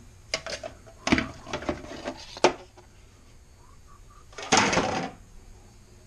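Plastic vacuum-cleaner parts handled and set down on a workbench: a quick run of clicks and knocks in the first two and a half seconds, then a loud half-second rush of scraping noise about four and a half seconds in.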